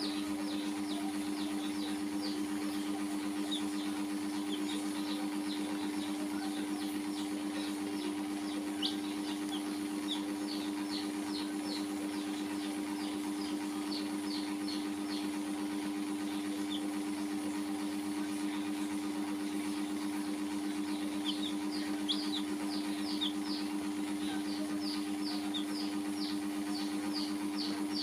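Baby chicks peeping in runs of short, high-pitched cheeps that thin out past the middle and pick up again near the end. Under them runs a steady, even hum.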